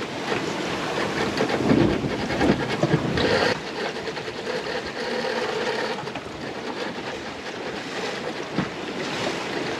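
Steady rush of wind and sea around a small sailboat under way on the open ocean, louder for the first few seconds and then quieter.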